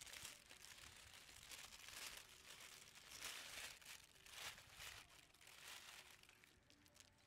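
Faint crinkling of a thin plastic bag in a wicker basket as a bunch of fruit is pulled from it, in several rustles that die away near the end.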